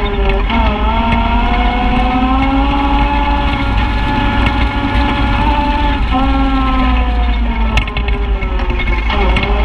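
Side-by-side UTV engine running under throttle as it drives a dirt trail, its pitch dipping and climbing again several times as the driver lets off and gets back on the gas, over a steady low rumble. A single sharp knock about eight seconds in.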